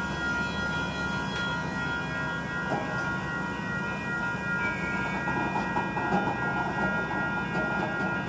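Freight train of covered hopper cars rolling past, the wheels giving a steady rumble with occasional clacks. A grade-crossing bell rings rapidly and evenly above it.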